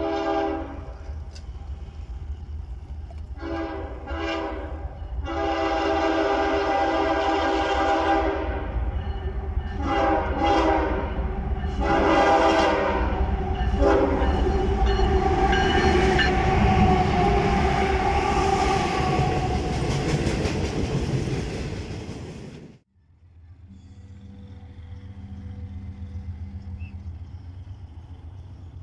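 Diesel freight locomotive sounding its horn in a series of blasts, one held for about three seconds, as it comes up to and passes by, with loud engine rumble and rolling rail noise from the train. About 23 seconds in the sound cuts off abruptly, giving way to the quieter low rumble of a distant approaching train.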